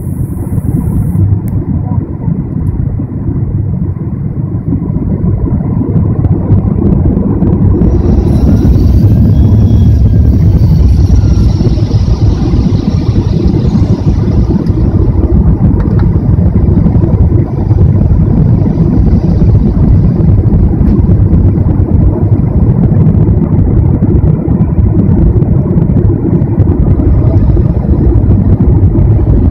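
Airliner cabin noise during the approach to landing: a steady, loud, low rumble of engines and rushing air, rising a little in level over the first six seconds or so.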